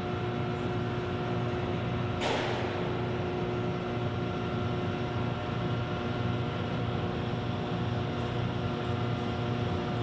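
Steady machinery hum of a large industrial hall, with several held pitches over a low rumble. A brief burst of hiss comes about two seconds in.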